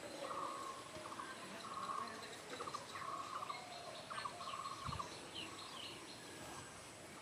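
Birds calling outdoors: short trilled calls repeated over and over, with a few higher, falling chirps about four seconds in.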